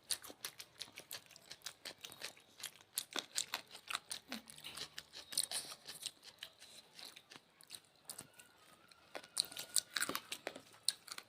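People eating rice with chicken curry, egg curry and salad: chewing and crunching, with many sharp, irregular mouth clicks and smacks.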